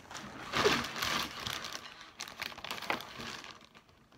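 Thin plastic shopping bag rustling and crinkling as it is handled, in uneven spells with a few sharp crackles, dying away near the end.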